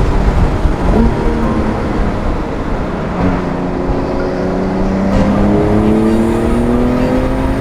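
Porsche 911 Carrera (992.2) twin-turbo flat-six under acceleration, with a brief jump in revs about a second in. Its pitch then rises steadily through a gear for the last four seconds or so, over road and wind rumble.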